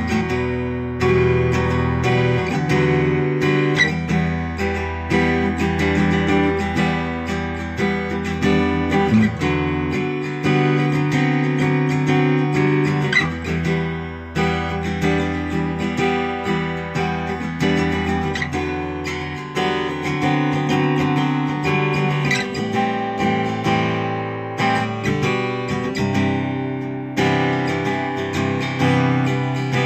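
Taylor Academy 12e acoustic guitar played solo through a Line 6 Helix: a continuous instrumental passage of chords and picked notes with no singing.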